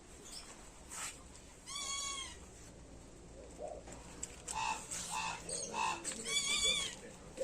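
A bird calling: one drawn-out call about two seconds in, then three short calls about half a second apart and a longer call near the end.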